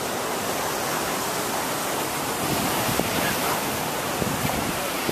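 Steady rush of ocean surf breaking and washing over a rocky shoreline.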